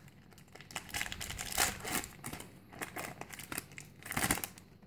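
Foil wrapper of a Pokémon TCG booster pack crinkling and tearing as it is opened, in a run of irregular crackles with louder bursts near the middle and near the end.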